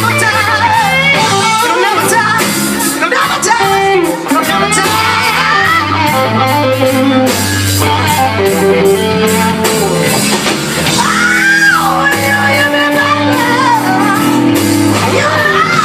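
Live rock band playing loud, with a man singing lead over guitar, bass and drums.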